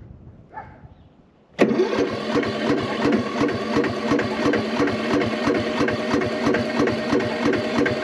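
Cub Cadet riding mower's starter cranking the engine, a steady whir with an even pulsing, starting suddenly about a second and a half in and stopping near the end without the engine catching. The tractor is hard to start, and its battery terminals are corroded.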